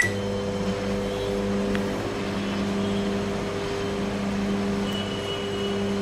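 LG microwave oven running with a steady low hum, just started on a two-minute heating cycle to steam-sterilise baby bottles. A short keypad beep sounds at the very start.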